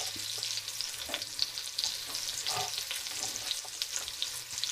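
Sliced onion and carrot sizzling and crackling in hot bacon fat in a frying pan as they begin to brown, with a few soft knocks.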